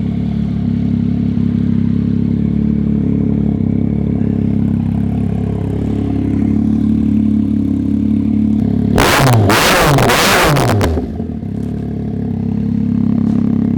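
Yamaha MT-09's three-cylinder engine, with an MIVV exhaust and no dB killer, idling loudly. About nine seconds in it is blipped hard, twice, and the pitch falls back to idle after each rev.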